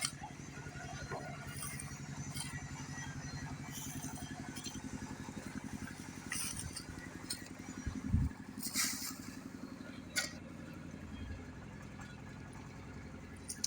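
An engine running steadily, weaker after about eight seconds, with a few scattered knocks and clinks.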